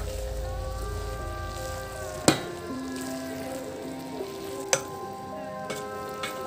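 Food sizzling as it fries in a pan, with two sharp knocks, a little over two seconds in and just before five seconds in, under soft background music of held notes.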